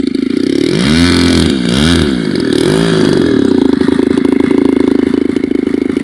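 DLE 20cc single-cylinder two-stroke gas engine on an RC model plane taxiing on the ground, its pitch rising and falling with several throttle blips in the first three seconds, then running steadily.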